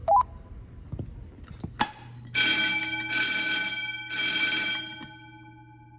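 Wheelock fire alarm motor bell ringing loudly in three stretches of just under a second each, then stopping and ringing down. Two sharp clicks come just before it.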